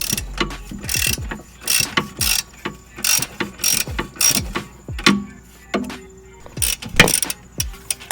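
Ratchet wrench clicking in short raspy bursts as it is swung back and forth, backing out a 17 mm brake caliper bolt.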